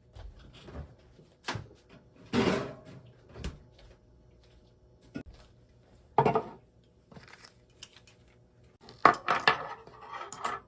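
Dishes and cutlery clinking and knocking in a kitchen: separate clatters at irregular intervals, getting busier near the end.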